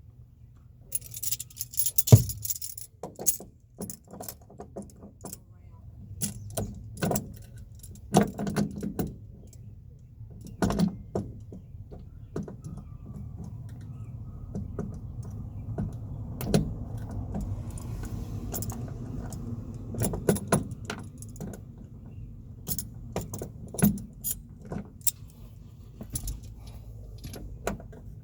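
Small metal parts and hand tools clinking and rattling in irregular bursts, with scattered sharp clicks, as the door striker's backing piece is worked into place in the door pillar. A faint steady low hum comes in about halfway.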